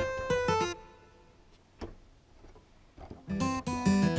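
Yamaha MX49 keyboard playing a sampled guitar patch: a quick run of plucked notes, a pause of about two and a half seconds, then another quick run ending on a ringing chord.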